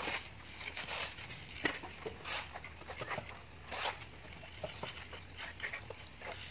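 Plastering trowels scraping and tapping on wet cement render as it is spread and smoothed on a wall, in short irregular strokes.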